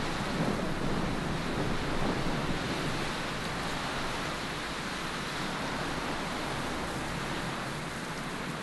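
Wind blowing steadily, an even rushing hiss with no distinct events, easing slightly toward the end.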